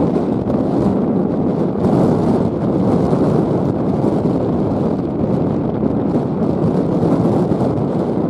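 Strong gusting wind buffeting the microphone, a loud, rough rumble that swells and eases from moment to moment.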